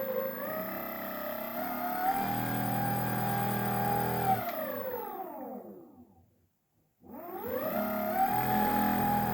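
Whine from the right wheel hub. It rises to a steady pitch, falls away to a stop about six seconds in, then winds back up as the wheel spins up again. This is the odd noise the hub is making.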